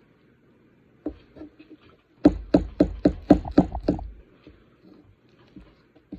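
A quick run of about eight sharp knocks with dull thumps under them, about four a second, starting about two seconds in; a few fainter taps come before and after.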